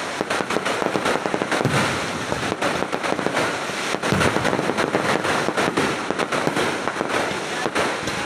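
Fireworks going off in a dense, unbroken string of sharp cracks and bangs, several a second.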